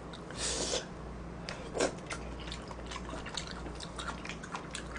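Faint wet clicks and smacks of a person chewing food, with a short rustling hiss about half a second in.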